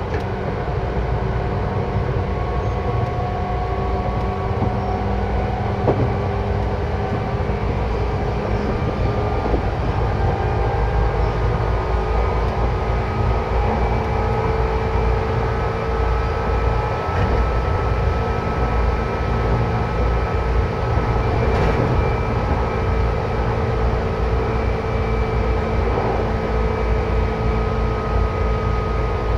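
Seibu 10000 series electric train running, heard from on board: a steady rumble of wheels on rail under a motor whine whose tones slowly rise in pitch. There is one sharp click about six seconds in.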